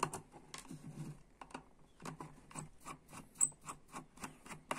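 Screwdriver tip picking and scraping at crumbly sealing mastic over the screws of a plastic radio case, to break the factory seals. Irregular light clicks and scratches, with one sharper click about three and a half seconds in.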